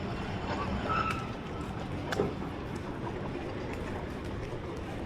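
Steady road-traffic noise, with a single sharp click about two seconds in.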